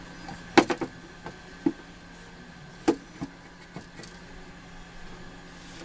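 Light clicks and knocks of parts being handled and set in place, about seven scattered taps with the loudest about half a second in and near the three-second mark, over a faint steady hum.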